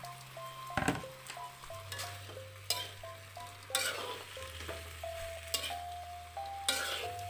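Spatula stirring and scraping fried tofu cubes around a wok, with a light sizzle and about five sharper scrapes against the pan. Background music with a plucked melody and a bass line plays underneath.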